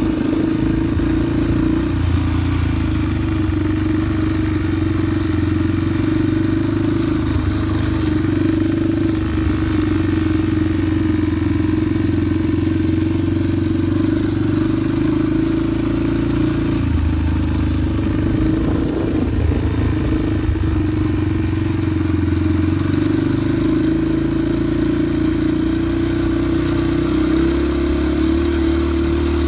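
Small dirt-bike engines running at a steady low speed, with no big revs. The filming rider's own bike is close by, and a Yamaha PW50's little 49cc two-stroke is ahead.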